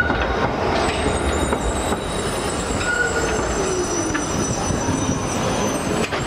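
Milan tram rolling past at close range: a steady rumble of steel wheels on the rails with thin, high-pitched wheel squeals over it, and a brief falling tone about halfway through.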